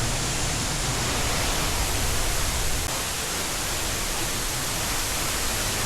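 Tat Huang Waterfall's falling water rushing loudly and steadily, an even hiss spread across low and high pitches alike.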